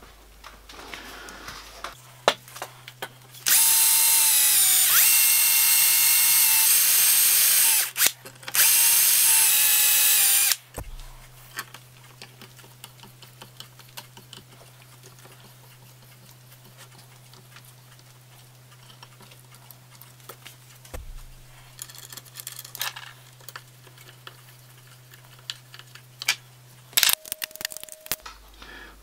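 18 V cordless drill running in two bursts, one of about four seconds and one of about two seconds, with a steady whine that dips slightly in pitch early in the first burst. Afterwards there are light clicks and taps of tools being handled.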